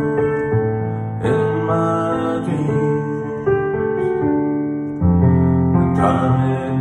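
Keyboard accompaniment to a slow ballad, playing sustained chords with a new chord every second or two. A deep bass note comes in about five seconds in.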